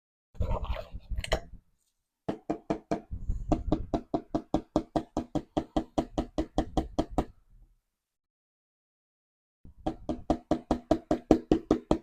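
Gold pan being tapped rapidly and evenly, about five knocks a second, in two long runs with a pause between. A short scuffling burst comes before the first run.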